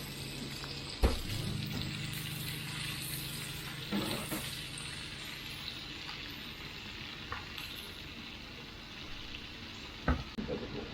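Food frying in oil in a pan, a steady sizzle, with a sharp knock about a second in and another near the end.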